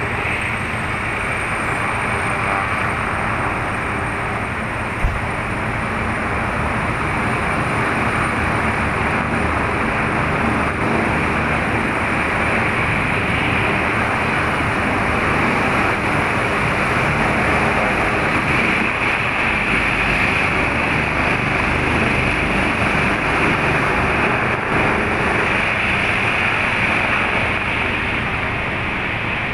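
Helicopter on an offshore rig's helideck: a steady rush of rotor and turbine noise with a thin high whine above it, as the helicopter lifts off and flies away.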